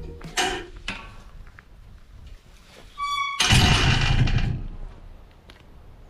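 Guitar music dying away, then a short high squeak about three seconds in, followed by a gust of wind buffeting the microphone for about a second.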